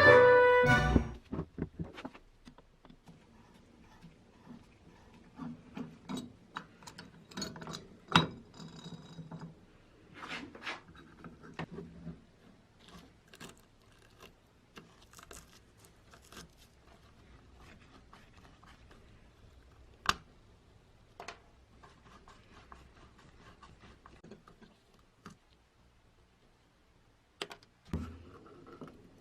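Scattered clicks, taps and short scrapes of metal parts and hand tools being handled on a workbench, with a sharper knock about 8 s in and again about 20 s in.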